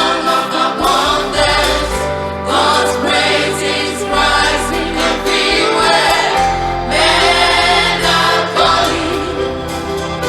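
Gospel choir singing over an instrumental backing with a steady bass line.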